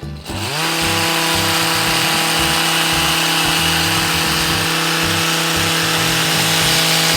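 Hedge trimmer motor speeding up in the first second, then running steadily at high speed with a high, even whine.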